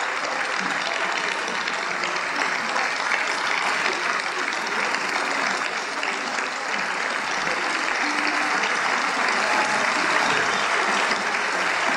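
A large audience applauding steadily, the clapping growing a little louder near the end.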